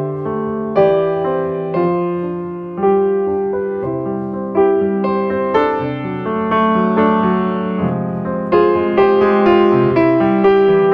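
Background music: a gentle piano piece of struck notes that ring and fade, with chords underneath.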